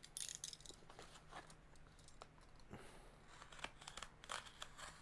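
Faint scratching, rustling and small clicks of retail packaging being handled and pulled open.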